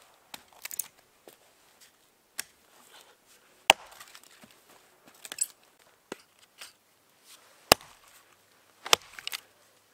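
Wood being chopped or split: about eight sharp knocks at uneven intervals, two of them much louder than the rest.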